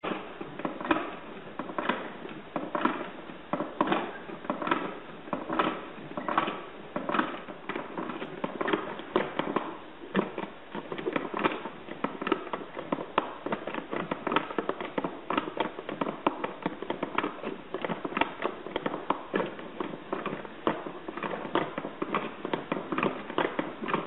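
Clicking and clattering of a hand-cranked automaton's cam and follower mechanism inside a cardboard box as the crank is turned, with a louder clack about once a second.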